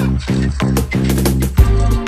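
Background music with a steady electronic dance beat and a deep bass line; a heavier bass beat comes in near the end.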